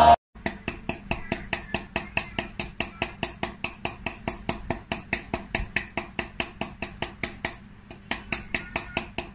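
A pen tip stippling on paper: quick, even taps, about five a second, with a short pause near the end.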